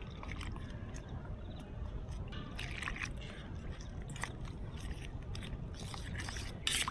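Water trickling from a steel tumbler into a steel bowl of cornflour and maida, then a steel spoon stirring the batter, with small clinks and scrapes of spoon against bowl.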